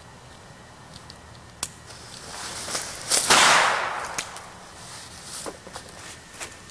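A small firework set in a plastic toy tank: a hiss builds from about two seconds in, then it goes off with a sharp rushing burst about three seconds in that blows the turret off and fades over about a second. Scattered sharp clicks and crackles follow.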